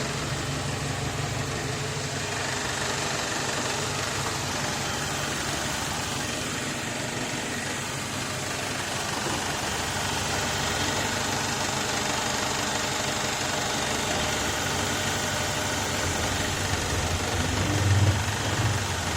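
BMW E90's N46B20 2.0-litre four-cylinder petrol engine idling steadily, with a brief louder low rumble near the end. The intermittent creak from under the automatic gearbox that is being hunted does not appear.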